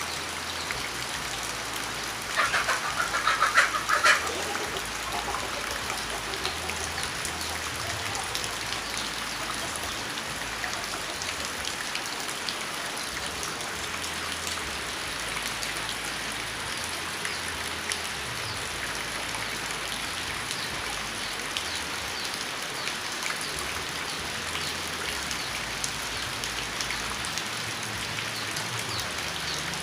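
Rain falling steadily. A louder, pulsing call-like sound cuts in about two seconds in and lasts about two seconds.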